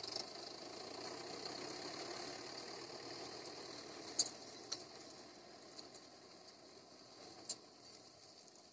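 Mahindra tractor's diesel engine running faintly as the tractor and its trailer drive past through the mud, swelling over the first two seconds and then slowly fading as it moves away. A few short clicks sound over it.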